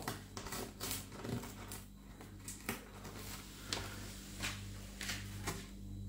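African grey parrot digging its beak into a torn cardboard box of cape gooseberries, making a run of irregular small crackles, scrapes and tearing clicks from the cardboard and papery husks, over a faint steady low hum.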